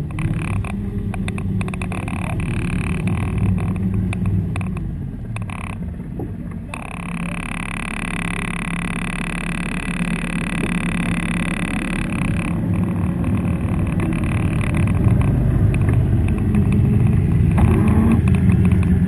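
Airsoft tank's engine running as the vehicle moves, growing louder toward the end. A steady higher whine joins it from about seven to twelve seconds in.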